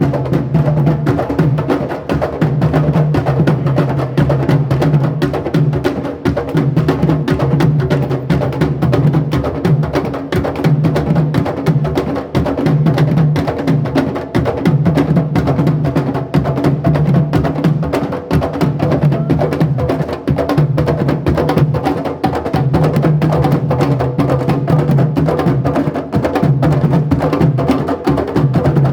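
Music driven by dense, fast percussion with a woodblock-like click, over a repeating bass line that comes and goes in phrases of about two seconds.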